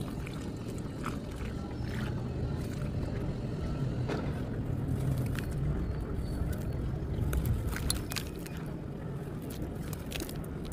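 Hands squeezing and crumbling wet, gritty sand blocks and sand balls in a plastic basin, with scattered crackles of grit that come thicker near the end, over a steady low rumble.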